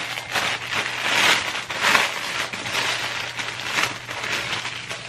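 Plastic packaging crinkling and rustling in irregular bursts as a garment is unwrapped by hand.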